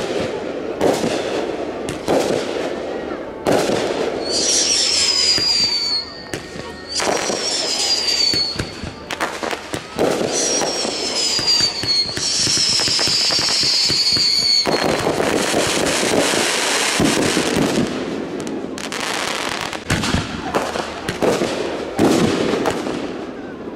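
Consumer aerial fireworks going off in quick succession: sharp bangs of launches and bursts. In the middle stretch, four falling whistles rise above them, then a few seconds of steady hiss before more bangs.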